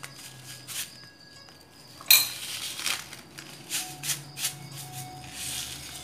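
A metal spoon clinking and tapping against a glass bowl and a seasoning sachet while powdered seasoning is spooned in: a series of separate light clinks, the sharpest about two seconds in.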